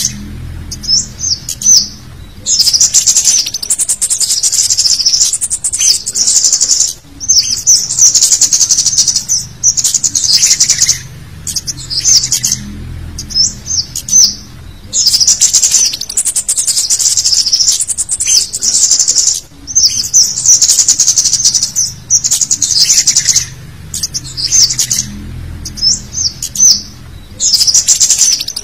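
Scarlet-headed flowerpecker (cit kemade) calls: loud, rapid, high-pitched chittering in bursts of a second or two with short gaps between them, a busy mix of calls played as a lure to draw wild birds in.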